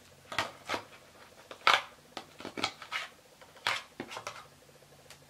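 Plastic silken-tofu tub being shaken and squeezed over a mixing bowl to empty it: a string of irregular clicks and knocks, the loudest about two seconds and again about four seconds in.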